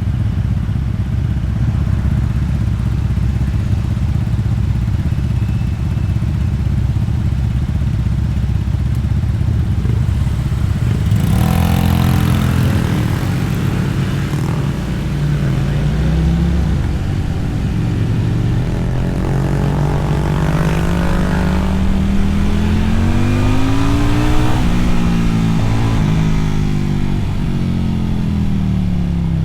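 Motorcycle engine and exhaust heard from the rider's position: a steady low rumble at first, then the bike accelerates, its pitch rising, dropping at a gear change and rising again before easing off and falling near the end.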